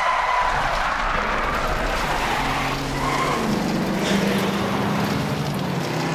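Race car running at speed with tyre noise, a steady engine drone coming in about halfway through.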